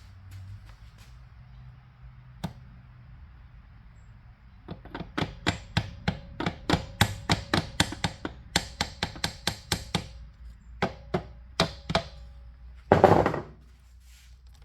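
Metal tapping on a dirt bike's rear axle and notched chain adjuster to move the adjuster one notch: a quick run of sharp knocks, about three or four a second, each with a short ring. One heavier knock comes near the end.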